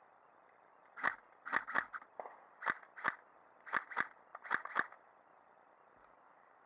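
Airsoft gun firing about ten sharp single shots, mostly as quick double taps about a quarter second apart, over roughly four seconds.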